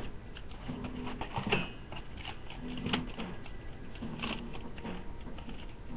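MRE plastic pouches and packaging being handled, with scattered crinkles and clicks. Short, low hum-like tones come and go about once a second over the handling.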